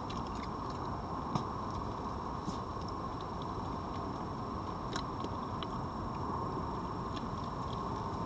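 Red fox eating meat and dry pellets from a plate: scattered small crunching clicks over a steady background hiss.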